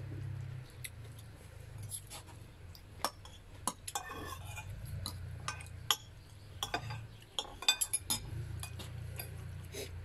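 Metal spoon and fork clinking and scraping against a ceramic plate while eating, a scatter of sharp clinks that come thickest in the second half. A low steady hum lies under it.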